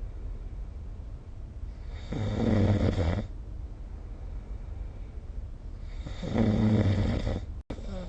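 A sleeping person snoring: two snores about four seconds apart, each a little over a second long. The sound cuts out for an instant just before the end.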